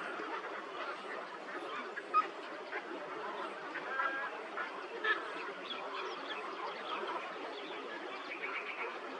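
Many birds calling at once in a dense, steady chorus of overlapping chirps and squawks.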